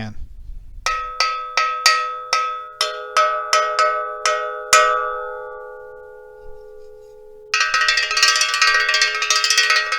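Metal bundt cake pan struck as a percussion instrument, ringing like a bell. About eleven steady strikes, a little under three a second, each leaving several ringing tones that fade out slowly. From about seven and a half seconds in it is played in a fast continuous roll.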